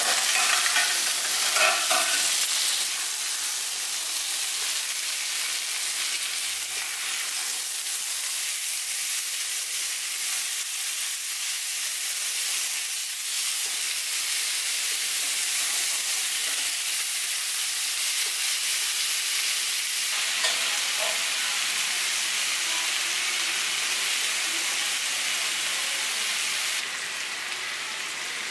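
New York strip steaks sizzling as they sear in a 12-inch Mainstays cast iron skillet over medium-high heat: a steady, dense hiss, louder for the first few seconds and dropping a little near the end.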